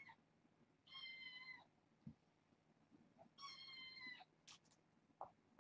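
Kitten meowing: two faint, high, thin meows, about a second in and again at three and a half seconds, each under a second long and dropping slightly in pitch at the end. A few faint taps follow.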